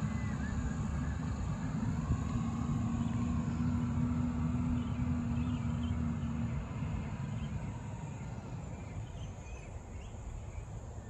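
Garbage truck's engine running as it drives away up the street, a low rumble with a steady drone that fades away over the last few seconds.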